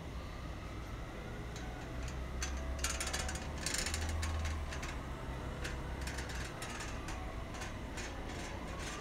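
Street noise: a steady low traffic rumble with scattered clicks and clattering knocks, busiest around three to four seconds in.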